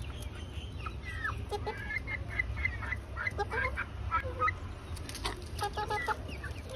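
A flock of domestic chickens clucking in quick, short calls as they crowd in to peck food from the ground.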